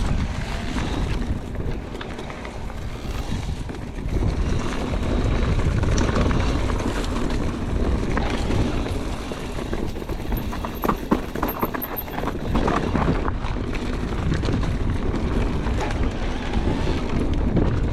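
Wind rushing over the microphone with a constant rumble and rattling from riding fast over rough ground, with a burst of sharp rattles and knocks about two-thirds of the way through.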